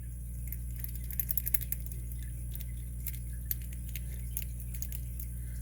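Light metallic clicking and scratching of a lock pick working the pins of a Master Lock No. 7 brass pin-tumbler padlock. A quick cluster of sharper clicks comes about a second and a half in.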